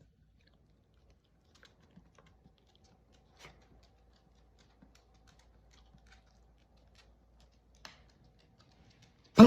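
Faint scattered ticks and clicks, then right at the end the sudden start of a loud, short honking cough from a bichon frise, the kind of cough typical of kennel cough.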